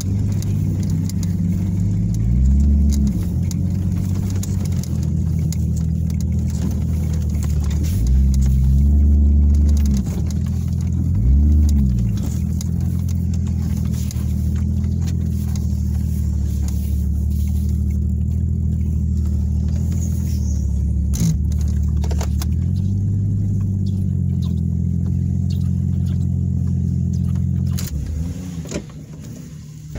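Engine of an off-road vehicle heard from inside the cab while driving, revving up and easing off several times. It settles to a lower, quieter run near the end.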